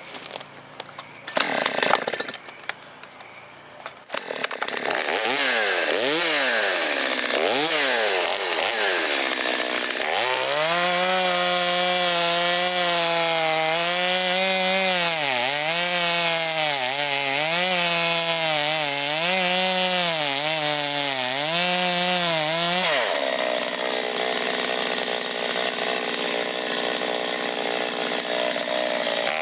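Vintage Stihl 025 two-stroke chainsaw. A few knocks come first, then the engine revs up and down a few times. From about ten seconds in it runs at high revs cutting through a log, its pitch dipping again and again as the chain bogs under load. Near the end the engine tone drops out behind a steady noise, then comes back as it revs up again.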